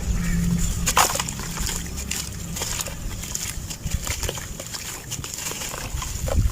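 Clumps of dry sand-cement being crushed and crumbled: irregular gritty crackling with a sharper crack about a second in and another near the end.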